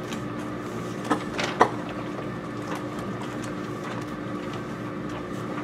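Quiet classroom room tone: a steady background hum, with a few short clicks and faint rustles a little over a second in as students open their paper journals.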